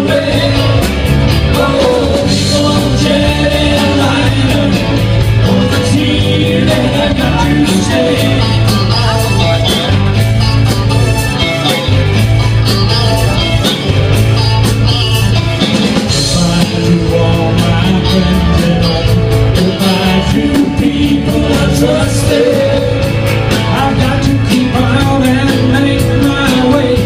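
Live band playing loud music with a singer and a steady drum beat.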